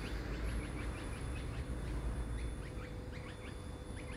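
Small birds chirping in the bushes: a scattered string of short, quick downward chirps, over a steady low rumble.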